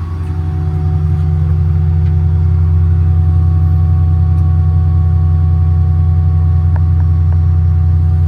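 Hydraulically driven rotary screw air compressor running on a diesel service truck, with the truck's engine running to drive it. The result is a steady low hum with faint steady tones above it, growing a little louder over the first second or two and then holding level. It is nice and quiet for a compressor.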